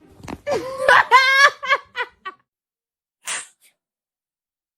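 A person laughing in a quick run of high-pitched bursts, followed about three seconds in by a short breathy puff.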